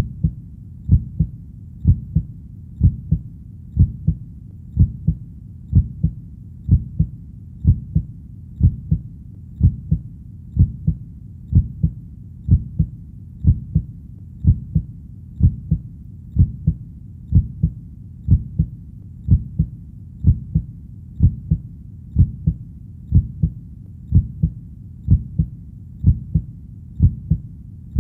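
Heartbeat, a steady double thump (lub-dub) about once a second, low and muffled, with a faint steady hiss between beats.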